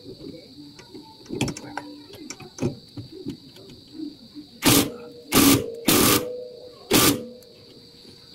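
Cordless impact wrench hammering in four short bursts in the second half, run on a bolt of the car's lower suspension arm to tighten it. Light clicks and knocks of the socket being fitted onto the bolt come before.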